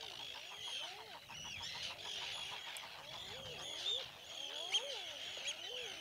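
A common eider colony calling: many overlapping drake coos, each rising and falling, under a dense chorus of higher chattering bird calls.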